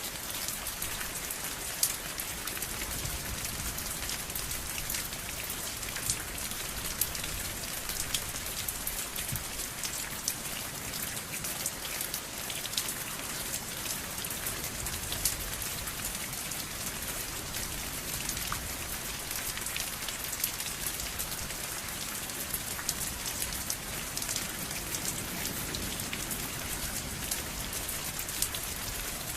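Steady rain falling on a surface, with a dense patter of individual drops ticking against it.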